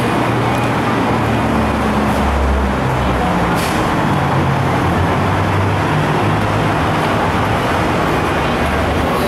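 Steady road traffic noise: a low, drifting engine hum under a constant wash of passing-vehicle noise.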